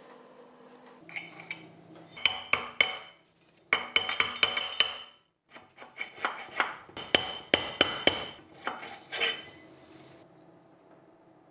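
A metal belt pulley and its spacer sleeve being worked off a small engine's output shaft by hand: bursts of sharp metallic clinks, knocks and scrapes with a brief ringing, in two spells with a short gap about halfway, then quiet near the end.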